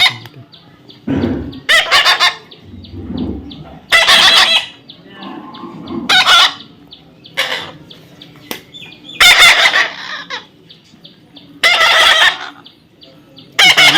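Parrot squawking: loud, harsh calls repeated about every two seconds.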